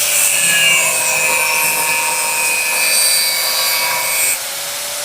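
Angle grinder cutting into a steel pipe: a steady motor whine under the hiss of the cut. About four seconds in, the cutting hiss stops and the disc keeps spinning freely, quieter.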